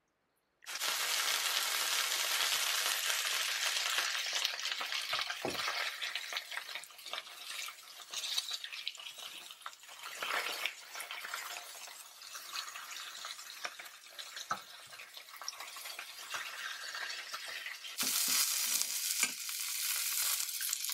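Flour-dredged chicken breast pieces sizzling as they brown in hot olive oil in a pan on medium-high heat. The sizzle starts suddenly about a second in and swells louder again near the end.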